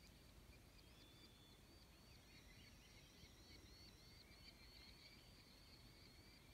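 Near silence with faint, high chirping animal calls repeated about three times a second, from about a second in.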